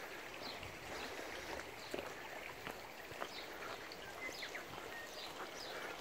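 Quiet outdoor ambience in bush: an even background hiss with scattered short high bird chirps and faint footsteps on a grassy dirt track.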